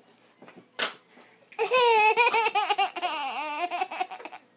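Baby laughing in a long run of quick pulsing laughs that waver up and down in pitch. A single sharp tap comes shortly before the laugh begins.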